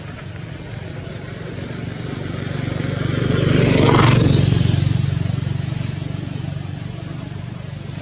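A motor vehicle passing by: its engine noise swells to a peak about four seconds in and then fades, over a steady low hum.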